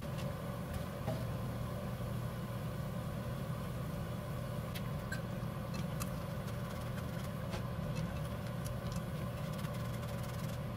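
Oil sizzling steadily as small squares of food deep-fry in a saucepan, with scattered small pops and clicks, over a steady low hum.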